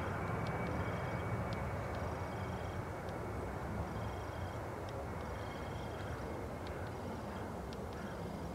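Jet airliner engines running at a distance: a steady rushing noise with a thin high whine, slowly fading. High, short chirps repeat about every second over it.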